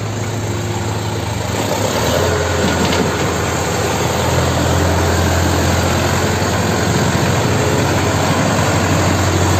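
Sonalika DI 750 tractor's diesel engine pulling a fully loaded brick trolley, running steadily under the load with a strong low hum. It grows louder about two seconds in as the tractor comes closer. It runs quietly ('silent') for the load it pulls.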